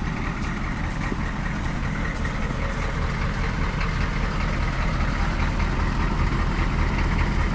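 A vehicle engine running steadily with a low drone, growing slightly louder toward the end.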